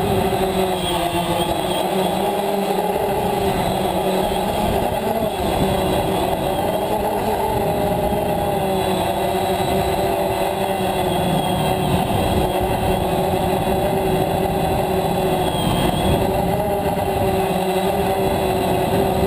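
DJI Phantom quadcopter's motors and propellers buzzing steadily, heard up close from the GoPro mounted on the drone, the pitch wavering slightly as it manoeuvres.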